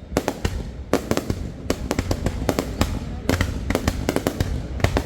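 Aerial fireworks going off in rapid, overlapping bangs, several a second, over a steady low rumble.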